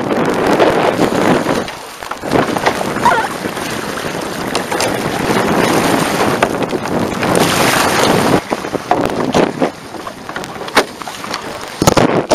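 Wind buffeting the microphone over the rush and splash of water along the hulls of an A-Class catamaran sailing fast, rising and falling in gusts. A few sharp knocks near the end.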